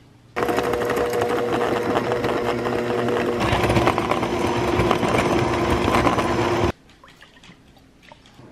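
Electric hand mixer running, its beaters whipping instant coffee and sugar into foam in a glass bowl. It starts abruptly about half a second in and cuts off sharply near the end. Its motor note drops a little about halfway through.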